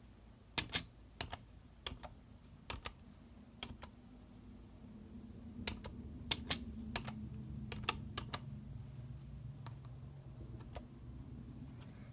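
Computer keyboard keys pressed one at a time by a prosthetic hand: slow, irregular clicks in small groups with pauses, with a quicker run about six to eight seconds in, over a low hum.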